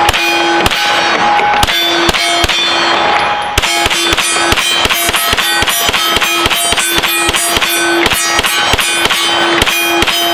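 9mm Glock 17 in a Roni carbine kit firing a long string of shots. Each shot is followed by the ringing clang of steel targets being hit. The shots come about every half second at first, then speed up to about three a second from a few seconds in, running to near the end.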